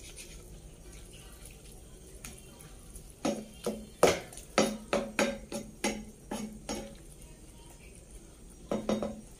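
Wooden spatula stirring a wet egg and vegetable mixture in a nonstick frying pan, knocking against the pan about three or four times a second from about three seconds in, with two more knocks near the end.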